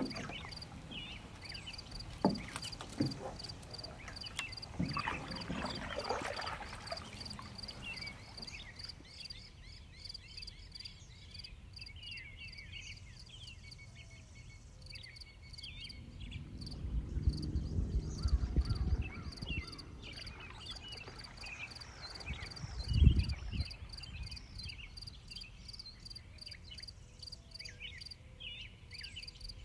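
Insects chirping in a steady, even pulse, with scattered short high chirps. A few low thumps and rumbles stand out about two-thirds of the way through.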